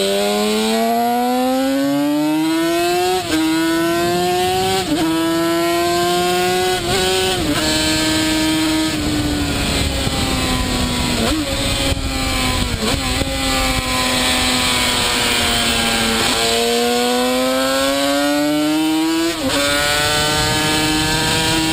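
Modenas KR3 two-stroke V3 racing motorcycle engine heard on board at speed: the revs climb through several quick upshifts, fall away through downshifts with short blips in the middle, then climb again through one more upshift near the end.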